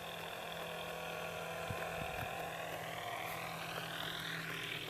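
Electric RC model AT-6 Texan's brushless motor and propeller whining, its pitch rising over the last couple of seconds as the throttle comes up.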